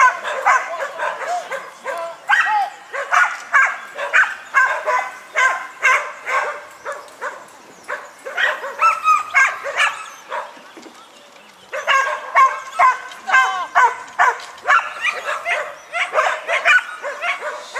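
A dog barking over and over in quick, high yaps, several a second, with a lull of a couple of seconds in the middle.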